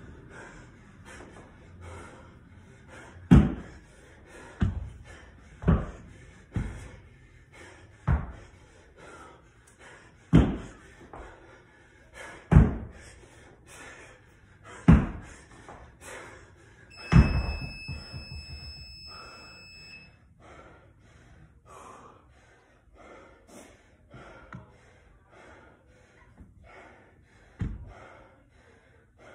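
A 50-pound dumbbell thudding onto a rubber floor mat during dumbbell snatches, about nine times, roughly every two seconds towards the end, with hard breathing between reps. With the last thud, about 17 seconds in, an electronic timer gives one long beep of about three seconds, marking the end of the timed workout. Heavy panting follows.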